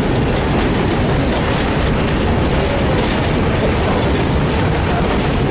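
Passenger train running along the track, heard from aboard the car: a steady, loud rumbling of the wheels on the rails.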